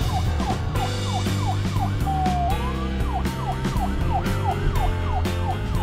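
A fast yelping police siren, its pitch sweeping down and up about four times a second and breaking into one longer falling tone about two seconds in, over background music.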